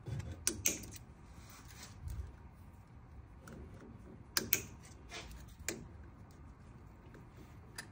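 Plastic zip tie tails being snipped off flush with cutters: a handful of sharp snaps, a quick pair about half a second in, another pair around four and a half seconds, then a couple of single ones.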